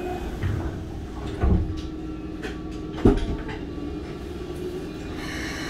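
Interior of a standing Keikyu 600 series electric commuter car: a steady low hum from the car's equipment, broken by two dull knocks about one and a half and three seconds in.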